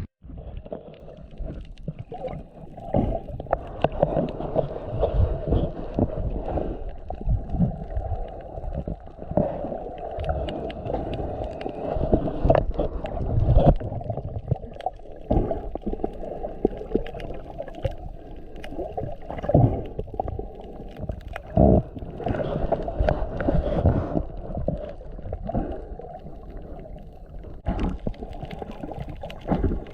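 Muffled water sloshing and gurgling with bubbles and irregular knocks, as heard through a waterproof camera housing in or under the water.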